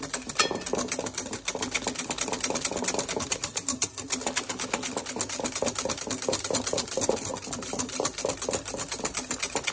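Wire whisk beating a thick egg, butter and sugar mixture by hand in a glass bowl, the wires clicking against the glass in a rapid, steady rhythm.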